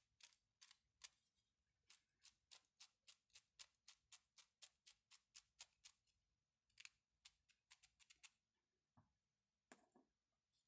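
3D-printed plastic mechanical counter clicking as its knob is turned by hand: a quick run of sharp clicks, about four a second, then a few slower ones. A couple of duller knocks come near the end.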